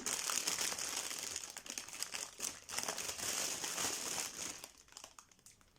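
Packaging crinkling and rustling with small clicks as the pieces of a resin mould for a set of drawers are handled and unwrapped. It dies down to a few faint clicks near the end.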